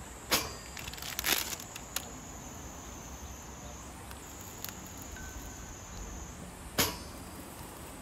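Wood fire crackling in a camping fire box stove, with several sharp pops, the loudest about a third of a second in and near seven seconds. A steady high insect buzz runs in the background through the middle.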